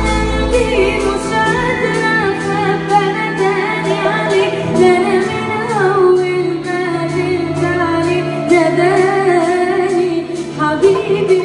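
A woman singing an Arabic song over instrumental accompaniment, her melody bending and wavering through ornamented phrases. The low bass drops out about a second and a half in.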